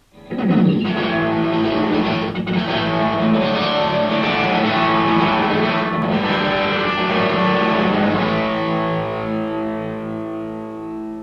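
Intro music on distorted electric guitar: a rock passage that settles into a held chord, slowly fading near the end.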